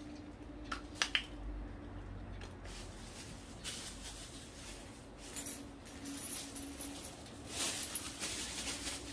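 Plastic bag rustling in several short bursts, with a couple of light clicks about a second in, over a faint steady hum.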